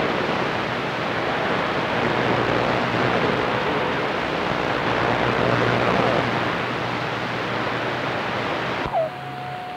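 CB radio receiver on channel 22 hissing with static from a skip signal. About nine seconds in the static drops away abruptly and a steady whistling tone starts.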